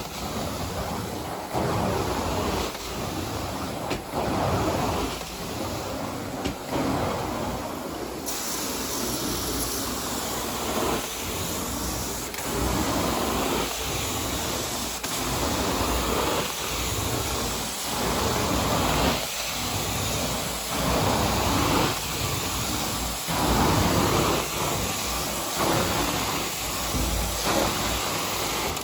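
Carpet-cleaning suction machine running steadily, swelling and easing about once every second or so with each pass over the carpet. The hiss brightens suddenly about eight seconds in.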